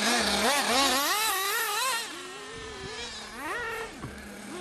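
Small .21 nitro engines of 1/8-scale 4WD racing buggies buzzing and revving up and down as they race, several engines overlapping. Louder for the first two seconds, then fainter.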